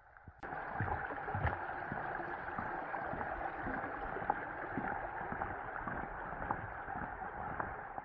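Rain pattering and a wet rain jacket rustling close to the microphone, a steady noise with many small scattered taps that starts suddenly about half a second in.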